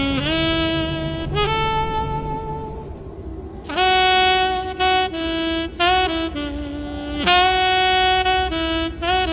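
Saxophone playing a melody of held, scooped notes over the band's bass accompaniment, in the instrumental introduction of a norteño-sax song. A louder phrase starts about four seconds in.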